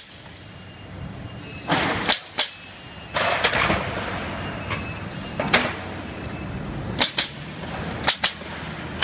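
Pneumatic nail gun firing nails into a wooden pallet: about seven sharp shots, the last four in two quick pairs. About three seconds in, the pallet knocks and scrapes as it is turned over on the bench.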